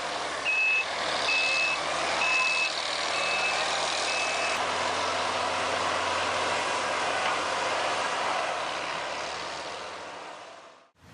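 Heavy machine's reversing alarm beeping five times, about one and a half beeps a second, then stopping, over the steady noise of the running machinery, which fades out near the end.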